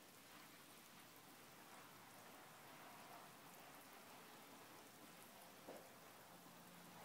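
Faint steady hiss of a garden-hose sprinkler spraying, its droplets pattering on grass and on a cat's fur, with one soft tick a little before the end.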